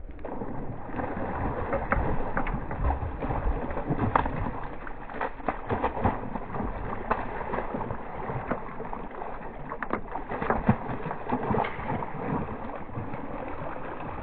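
Water sloshing and splashing, with many small clicks and knocks throughout.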